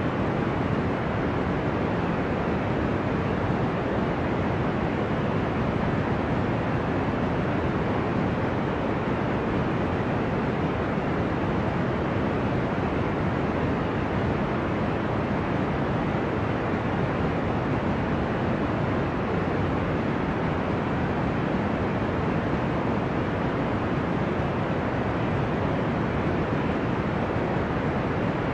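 Steady deep noise made to sound ocean-like: an even low rush with no rise and fall of individual waves and no breaks.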